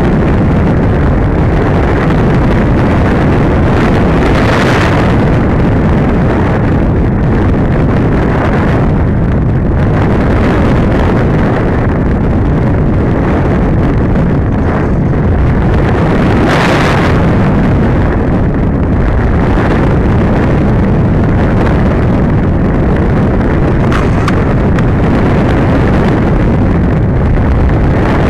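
Steady, loud rush of wind over the onboard camera's microphone on a 100-inch RC glider in flight, swelling briefly a couple of times.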